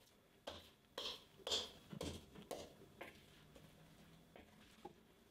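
A hand kneading soft, sticky yeast dough in a bowl: faint wet squelches and slaps about twice a second, thinning out after about three seconds.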